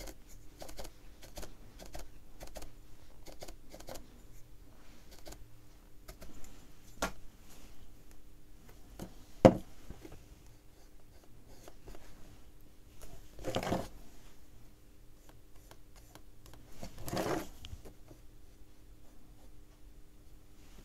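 Small ticks and taps of a paintbrush dabbing paint onto an MDF box, then one sharp knock as the box is handled on the table, about nine seconds in. Later come two brief scratchy rubs of fingers pressing over the painted wood.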